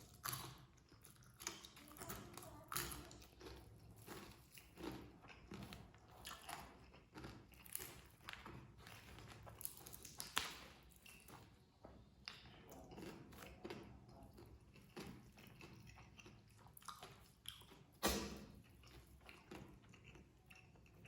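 Close-up eating sounds: a person chewing and biting rice and Padang dishes, with faint irregular mouth smacks and clicks and two louder ones about ten and eighteen seconds in.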